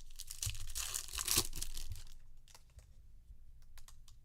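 A foil trading-card pack wrapper being torn open: a crinkly rip lasting about two seconds, followed by a few faint clicks.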